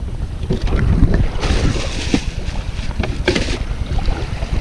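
Wind rumbling on the microphone, with a few light knocks and short patches of hiss.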